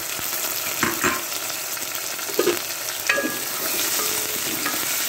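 Garlic-ginger paste frying in hot oil with browned onions in a metal pot, sizzling steadily. A spoon stirring it scrapes and knocks against the pot a few times.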